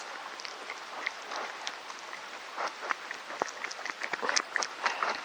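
Irregular footsteps crunching and rustling over the ground, with scattered short clicks.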